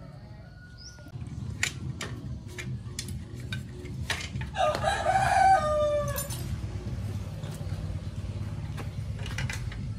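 A rooster crows once, about five seconds in, a call of about a second and a half that falls away at the end. Scattered light metallic clicks come from bicycle parts being handled and worked loose.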